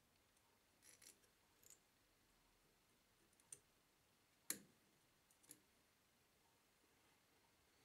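Near silence broken by about half a dozen faint, sharp clicks and taps of a brass shim knocking against a steel crankshaft as it is fitted by hand, the sharpest about four and a half seconds in.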